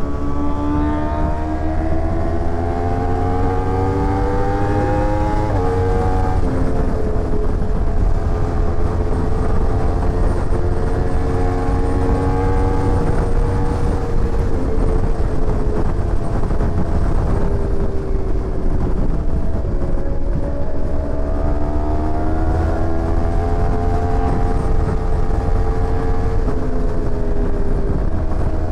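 Sport motorcycle engine pulling hard up through the revs, with a sudden drop in pitch at an upshift about five and a half seconds in. It then holds a steady speed, eases off briefly before twenty seconds and pulls again, with another shift near the end. A steady low rush runs underneath.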